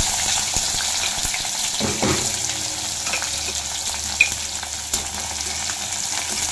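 Chopped onion and whole garlic cloves sizzling in hot oil with cumin seeds in a kadhai, a steady hiss that eases slightly as the onions settle. A few clinks of a metal slotted spatula stirring them come in the second half.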